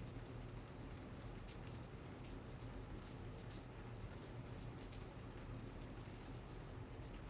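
Steady rain falling, a soft even hiss with scattered drop ticks, over a low steady hum.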